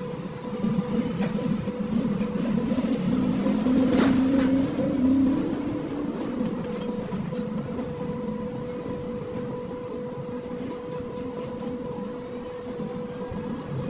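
Steady mechanical hum of a running machine, holding one even pitch, with a rougher low rumble that swells between about one and six seconds in. A single sharp click comes about four seconds in.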